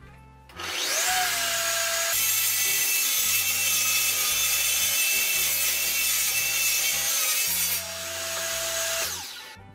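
Table saw starting up, then ripping through a rough, warped board held in a clamped sled for several seconds. The blade runs free with a steady whine before and after the cut, and the saw winds down near the end.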